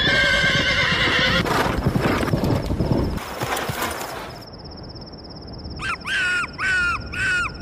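A horse whinnies loudly, then hooves gallop for about three seconds. After that, crickets chirp steadily, and four short, falling calls sound near the end.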